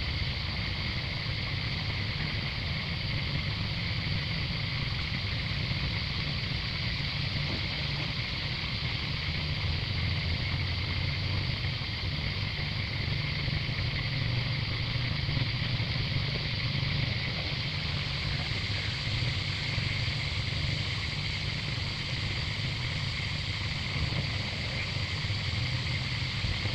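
Steady outdoor background noise: a constant low rumble under an unbroken high-pitched hiss.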